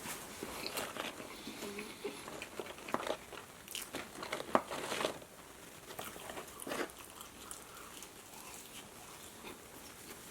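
Close-miked biting and chewing of crunchy fried food, with crisp crackling crunches that are loudest and thickest in the first five seconds, then softer, sparser chewing.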